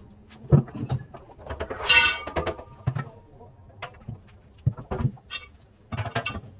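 Scattered knocks and clicks of hard objects being handled, with a short scraping rattle about two seconds in.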